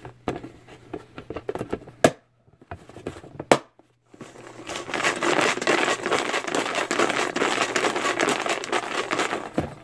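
Paper raffle slips rustling as they are handled, then, from about five seconds in, a dense, steady crinkling as the slips are shuffled by hand in a plastic tub. Two sharp clicks come around two and three and a half seconds in, with a moment of dead silence around them.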